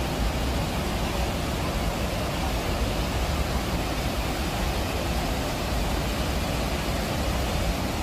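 Steady roar of the Rhine Falls: a large waterfall pouring and churning, with a deep rumble underneath.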